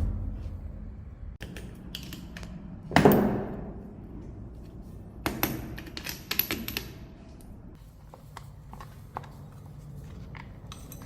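Metal parts and tools being handled: a heavy knock about three seconds in, then a run of light metallic clinks and rattles with a brief high ring.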